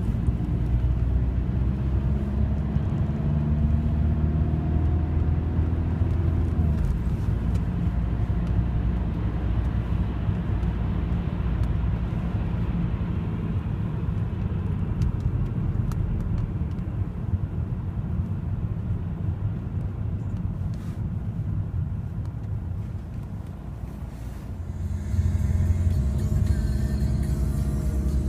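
A car driving on a multi-lane road, heard from inside the cabin: a steady low rumble of engine and tyres. It eases off briefly near the end, then picks up again.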